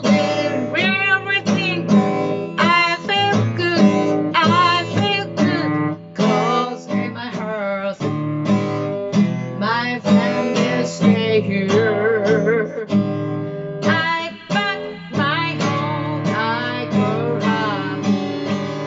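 A song: strummed acoustic guitar with a solo voice singing made-up, nonsense-English lyrics, a long wavering held note about twelve seconds in.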